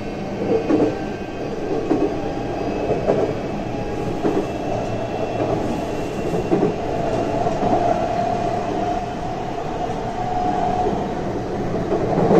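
Running sound inside a JR West 323 series electric train between stations: a steady rumble of wheels on rails, with a steady tone from its Mitsubishi full-SiC VVVF traction equipment.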